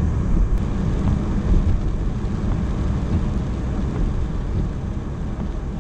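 Road noise inside a car's cabin, driving on a wet highway in heavy rain: a steady low rumble of tyres on the wet road and the engine, with rain and spray on the windshield.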